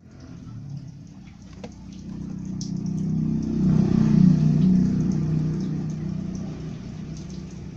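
A motor vehicle going past, its low engine noise growing louder to a peak about four seconds in and then fading away, with a few light clicks and rustles from toy boxes being handled.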